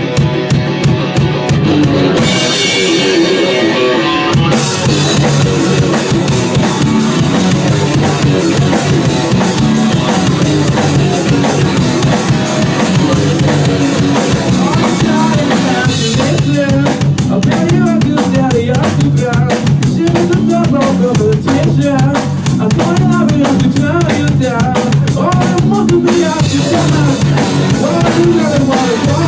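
Instrumental passage of a rock song played by a band with a full drum kit. The low end drops out briefly a couple of seconds in, then the full band returns, and the drumming gets busier for about ten seconds past the middle.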